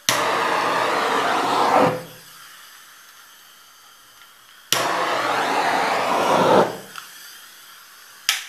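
Hand-held electric hot-air blower switched on and off in two bursts of about two seconds and one brief blip near the end, blown over wet poured acrylic paint to pop its bubbles.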